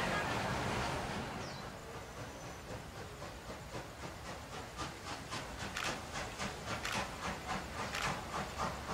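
Steam locomotive approaching, its exhaust chuffing in a steady rhythm of about three beats a second that grows louder.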